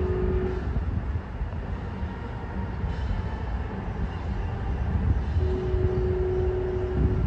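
Commuter train running with a low rumble, its horn sounding a short steady note at the start and a longer one of about two seconds near the end, typical of a horn signal for a grade crossing.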